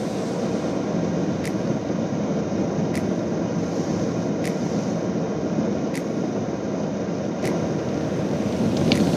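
Steady road and engine noise inside a Subaru's cabin while driving on snowy roads, with a light click every second and a half from the windshield wipers sweeping.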